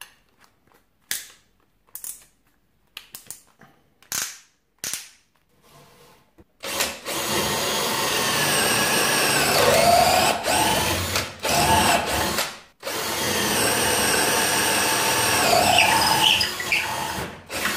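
Parkside PBSA 20-LI A1 cordless drill boring into a piece of wood: a loud motor whine whose pitch sags now and then, in two long runs with a brief stop between them. Before the drilling starts there are a few scattered clicks and knocks.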